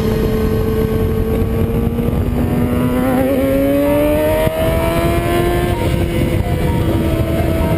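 Kawasaki Ninja ZX-6R 636 inline-four engine heard from on board, its pitch climbing steadily as the bike accelerates, then levelling off about three-quarters of the way through. Wind rush over the microphone.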